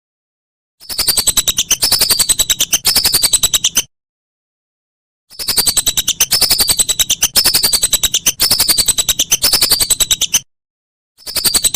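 Whistling duck (belibis) calling: fast trains of rattling pulses carrying a high whistled note that falls in pitch, repeated about twice a second. The calls come in three bursts cut apart by dead silence, as in an edited, looped recording.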